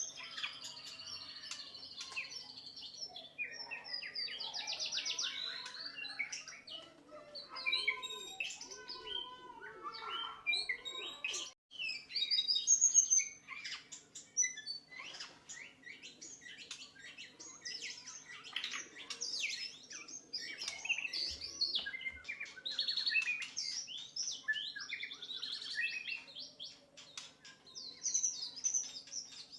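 White-rumped shama (murai batu) singing a long, varied song of rapid whistles, trills and chattering phrases, over a faint steady hum, with a brief break about a third of the way in.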